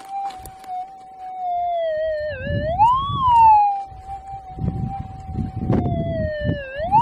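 Gold detector's steady threshold hum, which twice sags and then swells into a louder, higher wailing signal. Under it a steel pick scrapes and thuds into hard, stony ground.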